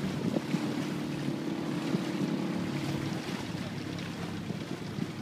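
Small boat's motor running steadily at low speed, a low even hum, with water washing along the hull and wind buffeting the microphone.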